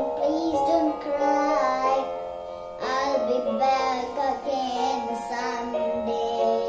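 A young boy singing over instrumental backing music, his voice sliding between notes above steady held chords.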